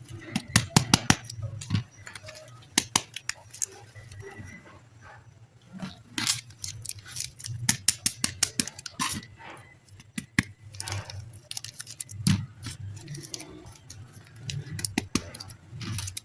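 Packaging of a pack of soft air-dry clay being handled and opened: irregular crinkles and sharp clicks, a quick cluster in the first couple of seconds, then scattered ones throughout.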